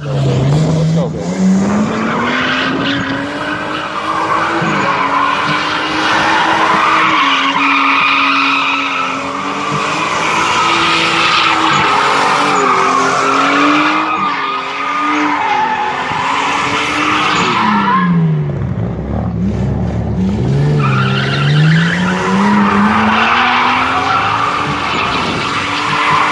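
Nissan Skyline R33 engine held at high revs while its tyres squeal in a long skid. The revs drop sharply about eighteen seconds in, then climb back up and hold high.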